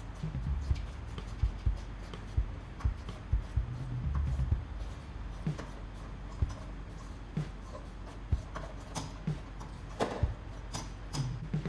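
Irregular clicks, taps and light knocks of hand work on a car's front end during disassembly, tools and parts being handled, with a brief low rumble about four seconds in.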